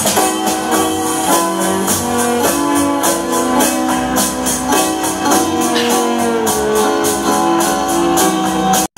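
Music with a quick, steady high percussion beat under sustained melodic lines; the sound cuts out for an instant near the end.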